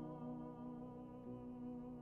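Classical baritone singing a long held note with vibrato over sustained grand piano accompaniment.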